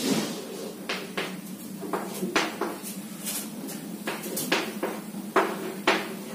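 Chalk tapping and scraping on a chalkboard in a string of sharp, irregular clicks as lines and arrows are drawn.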